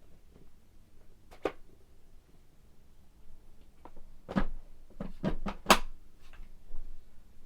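A few short knocks and clicks, as from objects being handled or set down: one about a second and a half in, then a quick cluster of four or five near the end, the last of them the loudest. No vacuum motor is running.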